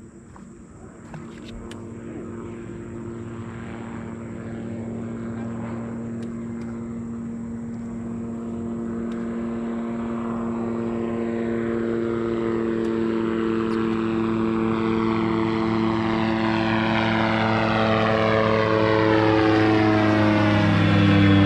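Propeller airplane approaching, its engine drone growing steadily louder throughout, with a sweeping shift in tone near the end as it comes close.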